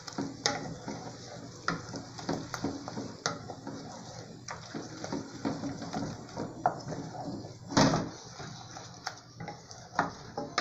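Wooden spoon stirring mashed-potato purée in an aluminium pot, knocking and scraping against the pot's sides in irregular strokes, with one louder knock about three quarters of the way through.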